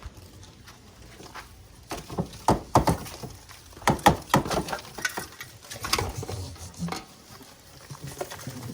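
Irregular knocks and rattles of a shop vacuum hose being handled and knocked to clear it of clogged leaves and debris, with the vacuum switched off.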